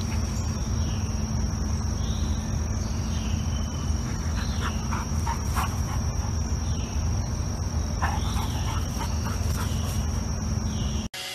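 Steady, high-pitched insect chorus of crickets holding one pitch over a low rumble, with short chirps scattered through it. It all cuts off abruptly near the end.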